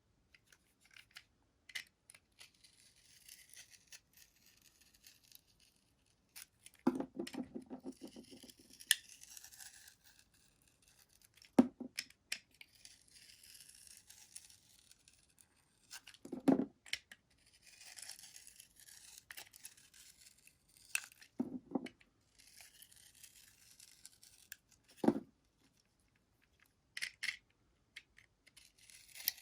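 Soap being cut with a blade: stretches of dry scraping and crumbling, broken by a sharp knock about every four to five seconds.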